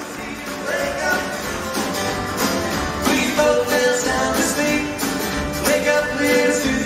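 Two acoustic guitars strumming chords together, an instrumental stretch of a rock-and-roll song.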